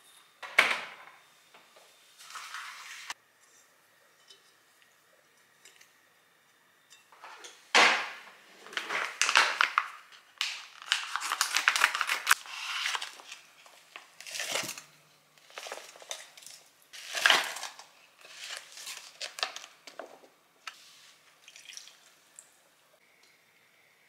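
A string of kitchen handling noises: sharp clicks and knocks with quiet gaps, plastic packaging crinkling, and a dense run of quick snips as kitchen scissors cut open a plastic food pouch about halfway through.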